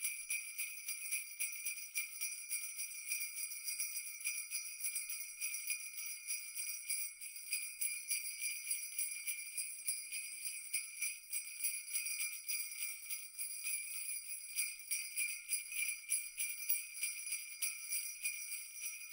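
Sleigh bells jingling, shaken in a quick, even rhythm.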